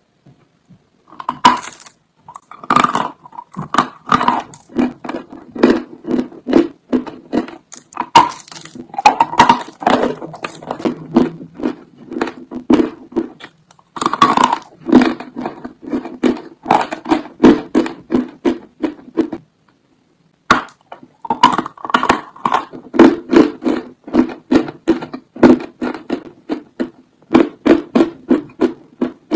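A person biting into a block of dry white chalk and chewing it: several sharp crunching bites, each followed by rhythmic chewing at about two to three chews a second. There is a short pause about two-thirds of the way through.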